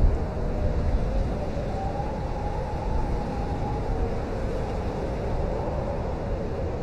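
Blizzard wind blowing hard and steadily, with a deep rumble of gusts and a howling whistle that wavers in pitch, rising a little in the middle.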